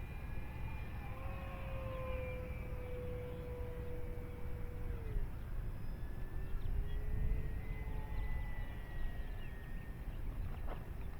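Electric motor and propeller of an FMS Cessna 1.5 m RC plane flying past: a thin steady whine that drops in pitch about five seconds in as it passes, then glides back up, over a low rumble. A few short clicks near the end.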